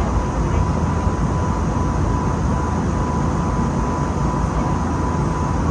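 Airbus A320neo cabin noise in flight: a steady, even roar of engines and airflow, heaviest in the low end, with a thin steady high tone running through it.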